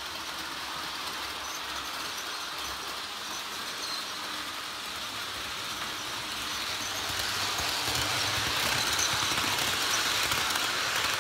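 Model passenger train running on the layout's track, a steady rolling whir that grows louder as it approaches and passes close by near the end.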